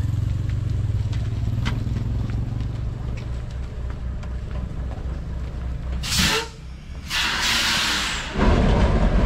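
Motorcycle engine idling with an even low beat. About six seconds in a short hissing rush cuts in, and near the end a louder, rough rushing noise takes over.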